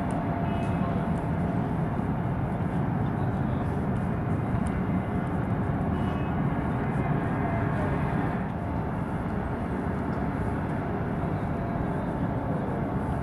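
A steady low mechanical rumble, with faint steady tones above it.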